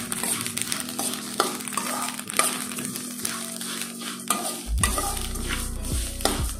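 Metal spoon scraping and stirring parboiled rice as it dry-roasts in a steel pan without oil, in repeated short strokes, with the grains crackling and popping ("tappu tippu") as they puff.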